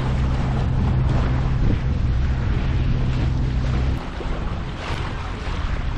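A boat's engine runs with a steady low drone under wind buffeting the microphone and the wash of water. The engine drone drops away sharply about four seconds in, leaving mostly wind and water.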